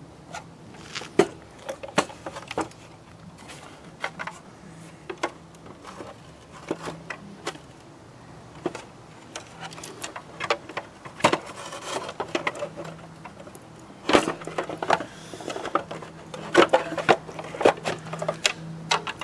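Handling noise from the plastic housing and metal parts of a Mosquito Magnet Patriot Plus as they are moved and fitted together: scattered clicks, knocks and rubbing, busiest in the second half, over a faint steady hum.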